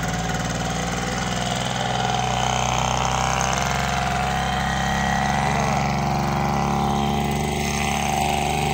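Small portable petrol generator running steadily at a constant speed.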